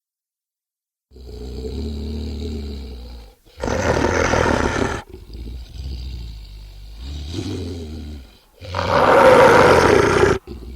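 Werewolf creature sound effect starting about a second in: low growling broken by two loud roars, about four and nine seconds in, each lasting a second or two.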